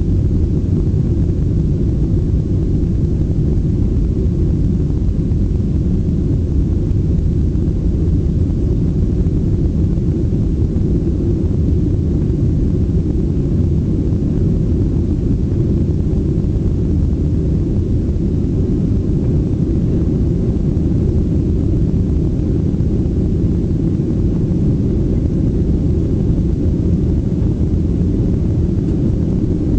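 Steady low rumble of a Boeing 737-800's CFM56 engines and airflow, heard inside the passenger cabin in flight.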